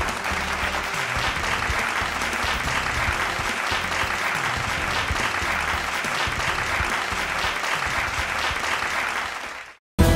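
Audience applauding steadily, fading out near the end. After a brief silence, music starts just at the close.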